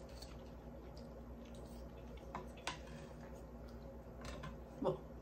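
Wooden knife and fork cutting chicken on a plate: a few scattered light clicks and taps of the utensils against the plate, the sharpest about two and a half seconds in.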